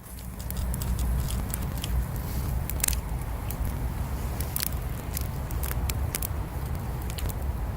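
Bonfire crackling: scattered sharp pops and snaps of burning wood over a steady low rumble.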